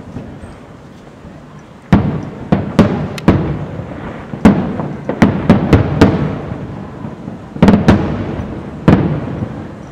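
Aerial firework shells bursting at a distance: a quiet first two seconds, then about a dozen sharp bangs in quick clusters, each trailing off in a rolling echo.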